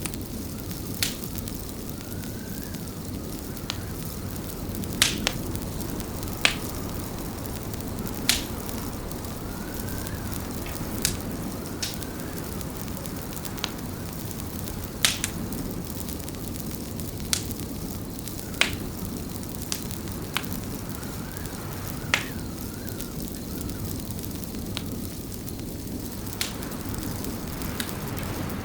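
Wood fire in a fireplace crackling, with sharp pops every second or two over a steady low rumble, and a faint wavering whistle now and then.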